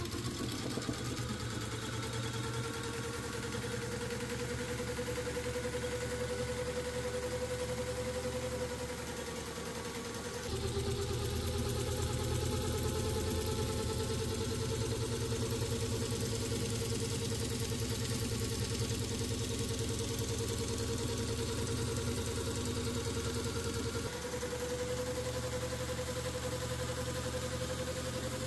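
Electric jigsaw motor running steadily, its reciprocating drive shaking a mesh sieve back and forth on drawer slides. A steady whine slowly creeps up in pitch, with small shifts in pitch and loudness about ten and twenty-four seconds in.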